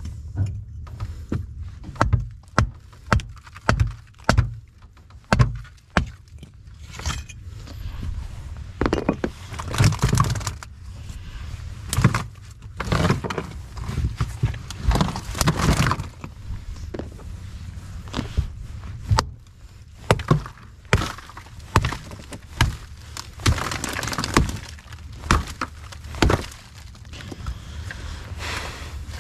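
An irregular series of sharp knocks and thumps, about a couple of dozen, some followed by brief scraping or rattling noise, over a steady low rumble.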